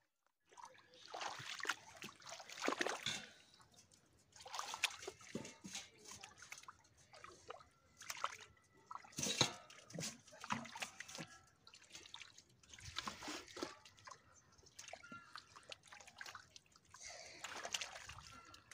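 Hands scooping and slapping through wet mud and shallow water: irregular splashing and squelching in bursts every few seconds, with the sharpest splash about nine seconds in.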